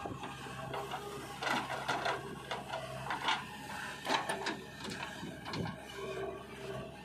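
JCB 3DX backhoe loader's diesel engine running steadily while the backhoe bucket digs into soil, with a series of irregular knocks and clatters from the bucket and arm.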